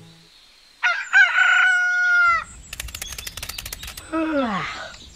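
Rooster crowing sound effect, one held call about a second in, followed by a quick run of sharp clicks, about ten a second, and a falling pitched glide near the end.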